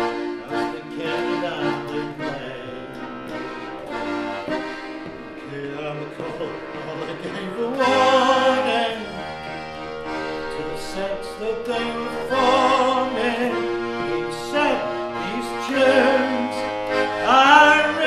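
Melodeon (diatonic button accordion) playing an instrumental break: a melody over chords as the bellows push and pull, with several louder swells of full chords.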